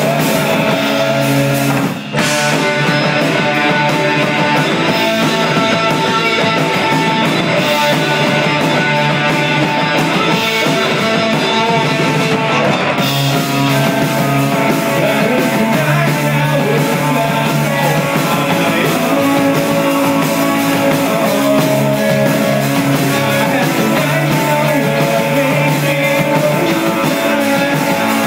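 Live rock band playing electric guitar, bass guitar and drum kit, with a brief break about two seconds in.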